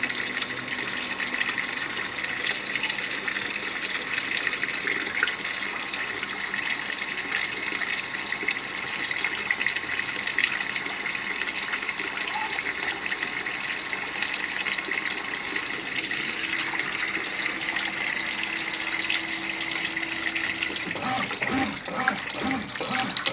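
Brastemp BWQ24A top-load washing machine filling with water: a steady hiss of water pouring into the tub as it tops up the level for the wash stage. Near the end the hiss changes and low irregular knocks begin.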